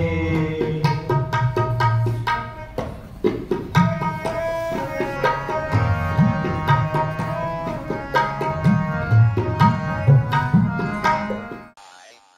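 Instrumental passage of Sikh shabad kirtan: tabla strokes, with pitch-bending bass drum tones, under a held melody, no singing. It fades out near the end.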